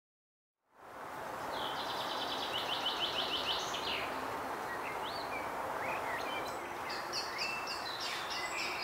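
Woodland ambience fading in after about a second of silence: a steady background hiss with songbirds calling over it, a fast trill first, then scattered whistles and chirps.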